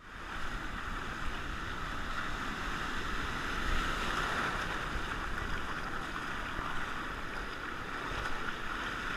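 Whitewater surf rushing around a camera held low in the shallows: a steady hiss of broken waves with a low rumble underneath.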